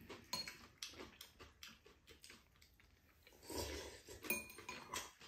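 Noodles slurped once in a short noisy rush a little past halfway, with light clicks of chopsticks against ceramic bowls throughout.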